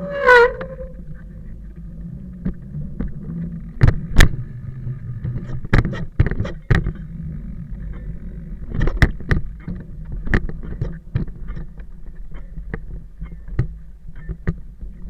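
Stumpjumper mountain bike rolling over rough ground: a steady low rumble broken by irregular sharp knocks and rattles, with a short falling squeal at the very start.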